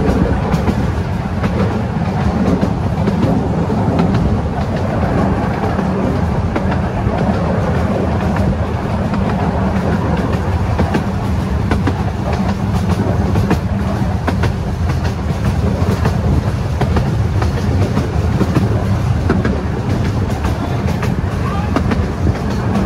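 A 12-inch gauge miniature railway train running along its track, heard from an open passenger carriage: a steady low rumble of wheels on rails with frequent light clicks.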